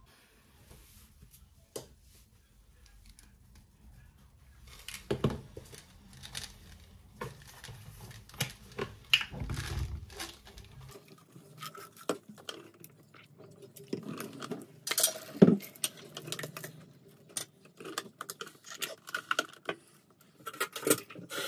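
Irregular small clicks, taps and light clatter of objects being handled.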